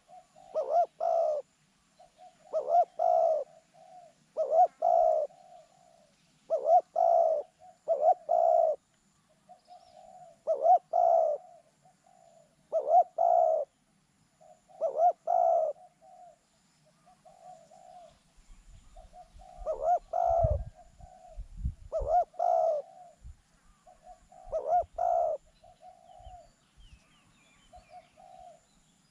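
A dove cooing, repeating the same phrase about every two seconds, each phrase ending in a pair of louder notes. A few low bumps come about two-thirds of the way through.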